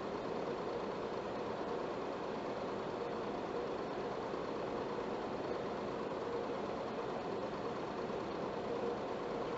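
Film projector running: a steady mechanical whir with a constant mid-pitched drone.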